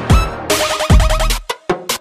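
Electronic music with a heavy beat and a repeating synth figure. It stutters and cuts out briefly near the end.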